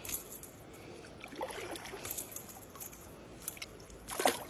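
Faint sloshing of water, broken by a few short splashes.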